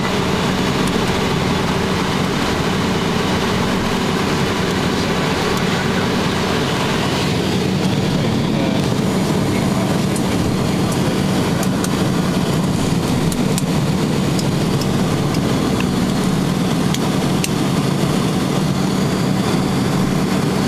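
Cabin noise of a Piper Cheyenne IIIA's turboprop engines and propellers during the landing rollout: a steady, loud drone with a constant low hum.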